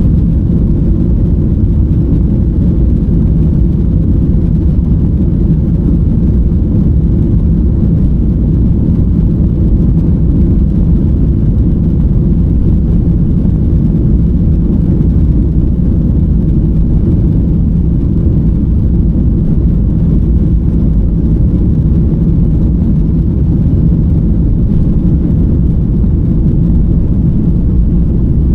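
Steady, low cabin noise of an airliner, its engines and airflow heard from inside the passenger cabin.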